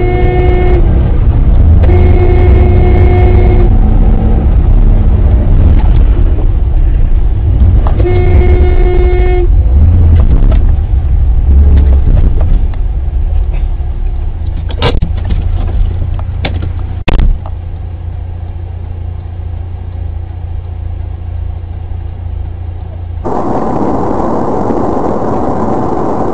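A car horn sounds in three long blasts in the first ten seconds, over the heavy low rumble of a car's engine and road noise heard from inside the dash-cam car. A few sharp knocks follow a little past the middle. Near the end the sound changes abruptly to a steadier, brighter road noise.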